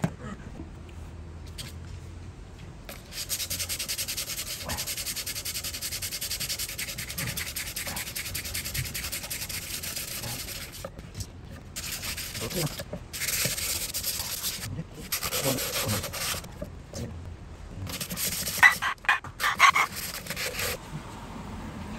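120-grit sandpaper rubbed back and forth by hand over a worn wooden cutting board to smooth its rough, cracked surface. The fast, steady scratching starts about three seconds in, then comes in shorter spells with pauses. A few short, louder sounds come near the end.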